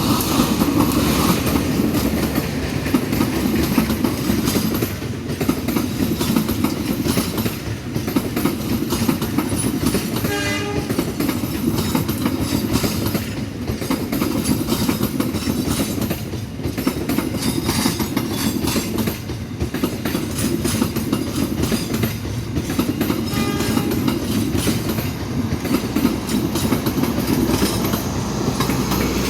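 A train passing close by at speed, its wheels clattering over the rail joints in a loud, continuous rumble. About ten seconds in, a short horn blast rises above it.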